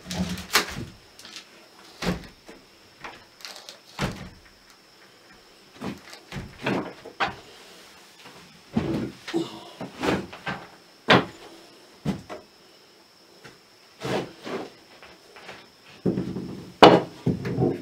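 Vinyl window frame knocking and clunking against the wooden rough opening as it is shifted and set into place: a string of irregular knocks and thuds, heaviest in a cluster near the end.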